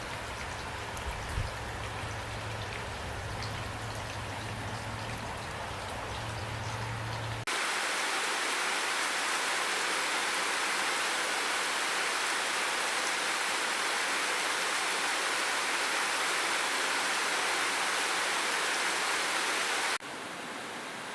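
Rain falling, with scattered drop patters and a low hum beneath. About a third of the way in it cuts abruptly to a louder, even rushing hiss of pouring water with no low end. Near the end it cuts just as suddenly to a quieter hiss.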